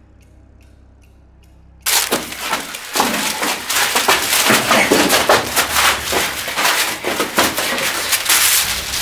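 Low hum, then about two seconds in a sudden loud burst of crashing and smashing: many impacts in quick succession as a scuffle breaks out and things break.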